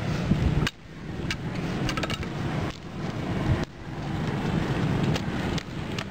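Low wind rumble on the microphone that drops off suddenly several times, with light clicks and rustles of dry split strips being pulled through a woven basket.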